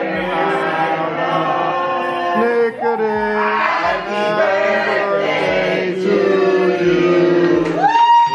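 A group of voices singing a birthday song together, with low thumps keeping a beat under the singing.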